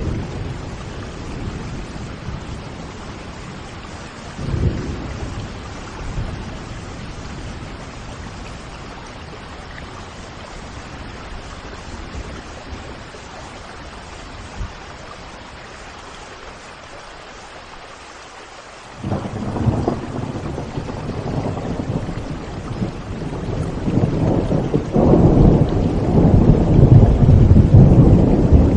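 Steady rain with rolling thunder. A brief low rumble comes about four seconds in, then about two-thirds of the way through a loud thunder rumble starts suddenly and swells.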